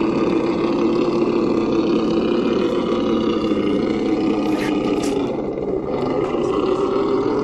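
Traxxas TRX-4 RC crawler's electric motor and gear drivetrain whining steadily, the pitch sagging partway through and rising again near the end as the throttle changes. A couple of sharp clicks come partway through.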